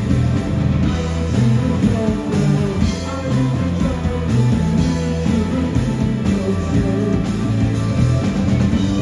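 Live rock band playing: electric guitars, bass and drums driving a steady beat, with a male lead singer singing into the microphone.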